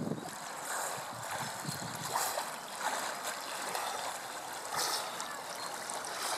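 Water splashing as several swimmers stroke through a river, with irregular splashes every second or two over a steady wash of water noise.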